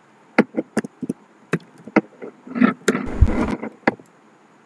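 Computer keyboard keys clicking one at a time as a word is typed, about nine separate keystrokes. About three seconds in comes a louder, brief rustling thump with some low rumble.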